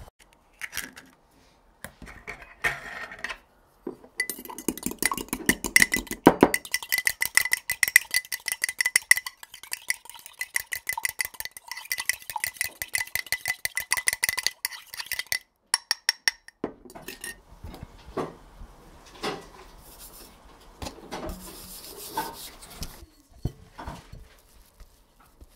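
A utensil stirring flour in a glass bowl, clinking rapidly and evenly against the glass so the bowl rings, for about ten seconds in the middle; before and after, scattered knocks and scrapes.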